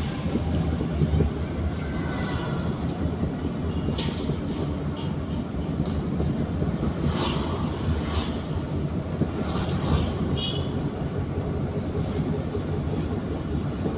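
Steady low rumble of a car's engine and tyres heard from inside the cabin while driving, with a few short sharp ticks in the middle.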